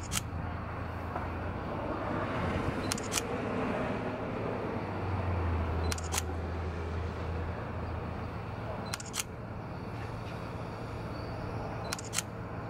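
A camera shutter firing about every three seconds, each a quick double click, as for time-lapse shooting. Under it runs the low, steady hum of the mobile crane's engine, which swells for a couple of seconds around the middle.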